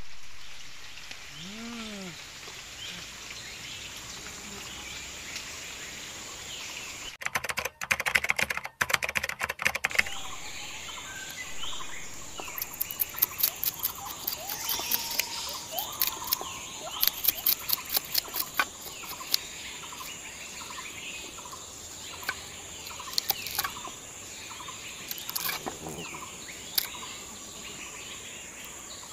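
Knife scraping and chopping on a wooden board as a small fish is scaled and cut, heard as a run of short sharp scrapes and clicks from partway through. Under it runs outdoor background with birds chirping and a steady high insect drone.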